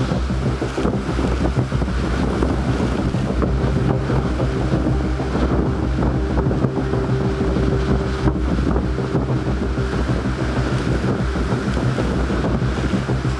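Hurricane-force wind gusting and howling, buffeting the microphone, over a low, steady musical drone.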